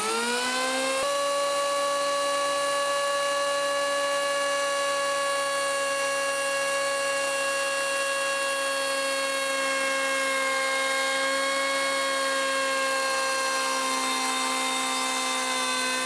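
Electric hand planer, mounted upside down as a bench planer, whining up to full speed in the first second and then running steady with its cutter drum spinning. A wooden edge is fed along the planer's V-groove to chamfer it, and the whine sags slightly in pitch in the second half under the cut.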